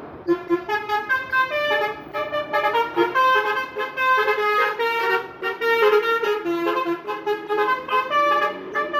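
A tour bus's multi-tone 'telolet' musical horn plays a quick tune of short notes stepping up and down, starting a moment in.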